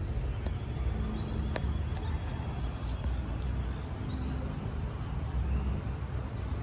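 Outdoor street ambience: a steady low rumble of distant traffic, with a few faint clicks and one sharp tick about a second and a half in.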